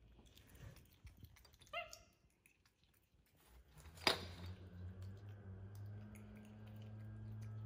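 A pet monkey rummaging through plastic toys and a drawstring bag. A short high squeaky chirp comes about two seconds in, and a sharp knock about four seconds in, after which a steady low hum fills the background.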